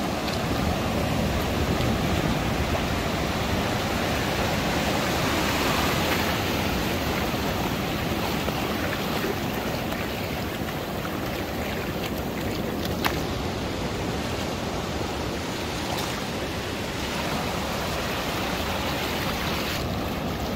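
Shallow surf washing over a sandy beach: a steady rush of moving water.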